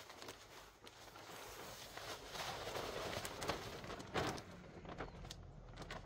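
Bagged compost pouring from a plastic sack onto dry leaves and crop residue: a rustling, pattering hiss that swells about two seconds in, with a sharp rustle about four seconds in.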